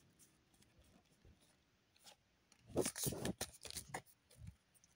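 Pokémon trading cards being slid and shuffled against each other in the hand: a short run of papery rubs and flicks starting just under three seconds in, after a near-silent stretch.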